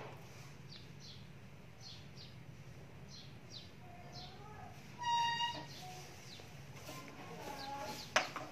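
Small birds chirping repeatedly, short high downward-sliding chirps, over a faint steady hum. A brief high-pitched tone sounds about five seconds in, and a sharp click comes near the end.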